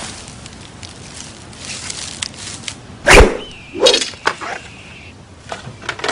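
Film sound effects of a katana being swung: a sharp swish about three seconds in, then a thin steady ringing of the blade, with a few quicker swishes after it.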